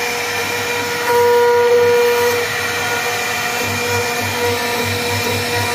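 CNC router spindle whining steadily while carving teak, over a low throb that pulses a few times a second. About a second in, the whine grows louder and higher for just over a second as the bit cuts harder, then settles back.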